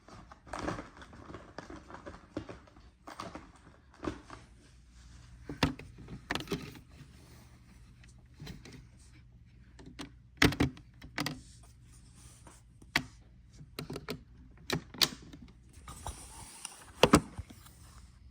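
Handling noises of loading a washing machine: irregular sharp clicks and knocks with rustling between them, the loudest knocks about ten seconds in and near the end.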